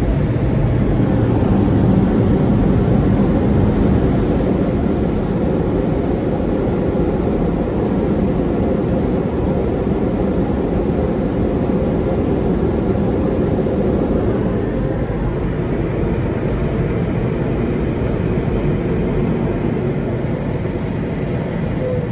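Steady loud roar of car wash air dryers blowing, heard from a car near the wash bay; the roar eases slightly after about four seconds.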